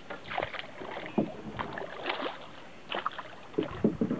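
Dugout canoe being paddled with a long wooden paddle: irregular splashes of the blade in the water, with a few dull knocks about a second in and near the end.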